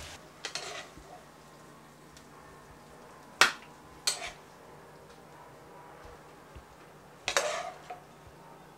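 A metal spoon knocking and scraping against a skillet as the cooked chicken is stirred and spooned out: two sharp clinks about three and a half and four seconds in, and a longer scraping clatter near the end, with quiet between.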